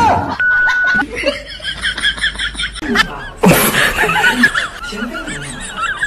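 Rapid, high-pitched laughter repeating over and over from about halfway through, after a short steady beep near the start.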